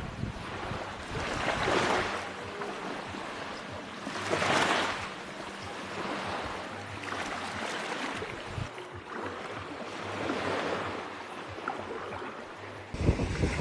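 Sea waves breaking and washing up the shore, a steady surf hiss that swells with each wave about every three seconds.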